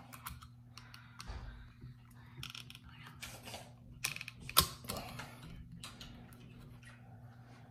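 Ratchet of a phone-scope adapter being tightened onto a rifle scope's eyepiece: scattered small clicks and handling sounds, with one sharper click about four and a half seconds in.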